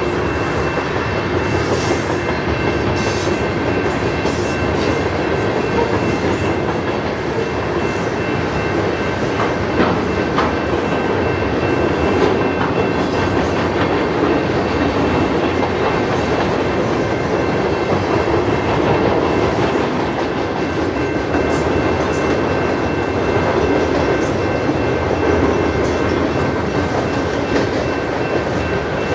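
Loaded freight-train flatcars rolling past at speed: a steady rumble of steel wheels on the rails with a rhythmic clickety-clack and a faint, steady high whine.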